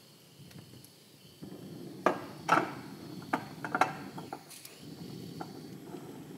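Small cartridge gas burner switched on under a test tube, its flame giving a steady low rush that starts abruptly, with several sharp clicks as it is lit and set in place; the burner is heating potassium chlorate to melt it.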